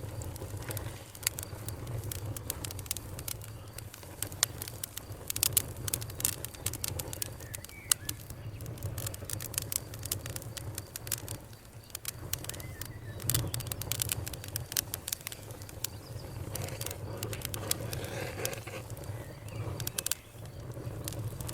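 Wood fire crackling outdoors, with many sharp pops and snaps over a steady low rumble. Birds chirp faintly now and then.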